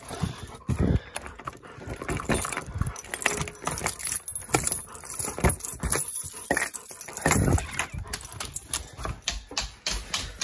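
Keys and a metal door knob rattling and clicking as a door lock is worked and the door pushed open, with irregular knocks and a dog's noises close by.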